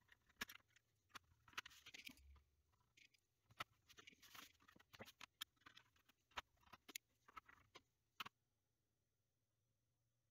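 Soft clicks, taps and brief scrapes of a Commodore 64 motherboard and its plastic case being handled and lifted apart with a screwdriver in hand; the sounds stop about eight seconds in.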